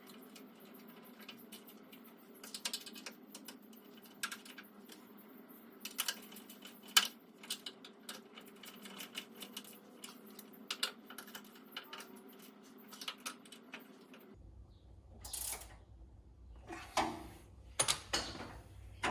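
Irregular light clicks and taps of hardware being handled while new caster wheels are fitted to a rolling tool cart, over a steady hum. The background changes abruptly about 14 seconds in, and a few louder knocks follow.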